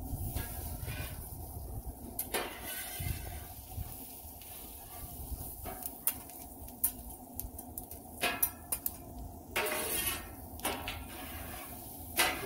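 Metal spatulas scraping and clanking on a steel flat-top griddle as sliced onions and bell peppers are pushed together, with sharp clinks and scrapes at irregular moments, several in a cluster toward the end.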